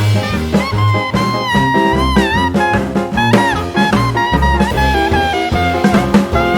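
Upbeat jazzy music with brass melody lines over a steady drum beat.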